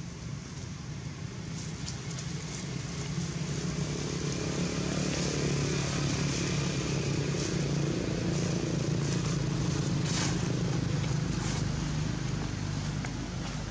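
A motor vehicle engine running in the background with a steady low hum, growing louder over the first several seconds and easing off near the end. Dry leaves crackle briefly now and then.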